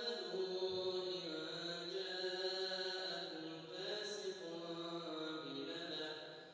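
A man reciting the Quran in a slow, melodic chant, holding long drawn-out notes that bend gently in pitch, with a short breath pause near the end.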